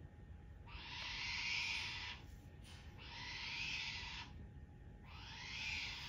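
A wombat calling three times, each a long, breathy, hiss-like call about a second and a half long.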